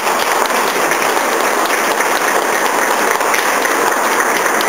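An audience applauding: steady clapping from many hands.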